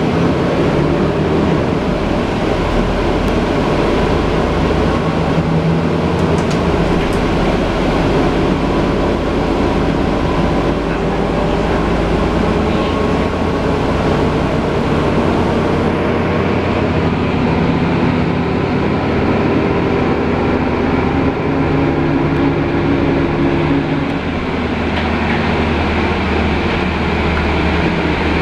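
Inside a Mercedes-Benz Conecto G articulated city bus under way: a steady drone of engine, drivetrain and road noise, the engine note rising and falling as the bus speeds up and slows.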